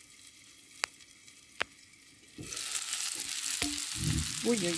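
Breaded chops frying in oil in a pan: a faint sizzle with two sharp clicks while the glass lid is on, then about two and a half seconds in the sizzle suddenly turns loud as the lid comes off.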